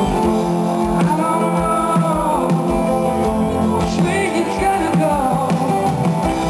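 Live pop-rock performance: a male lead vocal sings sustained, bending notes over guitar and band accompaniment.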